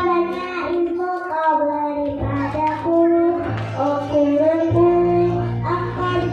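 Choir of kindergarten children singing a song together over instrumental accompaniment, holding sustained notes above a steady low bass line.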